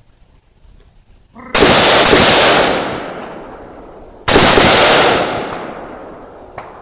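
Three loud rifle shots: two close together about a second and a half in, and a third a few seconds later. Each rings out with a long echo that dies away over a couple of seconds.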